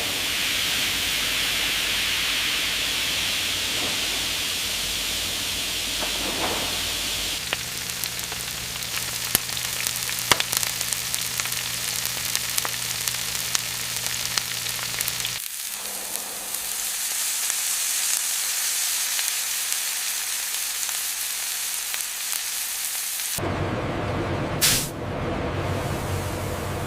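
A steady sizzle-like hiss that shifts abruptly several times: first a mid-pitched hiss, then a low steady machine hum with scattered clicks, then a higher hiss, and finally a fuller rushing noise with one short whistle near the end.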